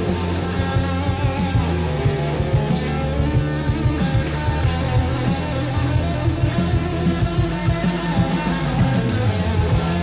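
Melodic rock band demo recording from 1987: electric guitar to the fore over bass and a steady drum beat.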